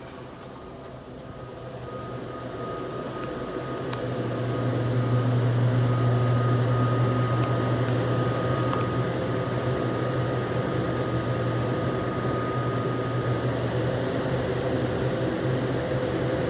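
Steady hum of running machinery, such as a fan or refrigeration equipment, with a low drone and a faint high whine. It grows louder over the first few seconds, then holds steady.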